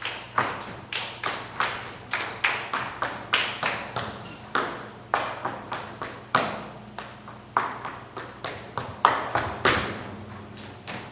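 An uneven run of sharp taps and knocks, about two to three a second, each ringing briefly; the loudest strike comes near the end, then the taps stop.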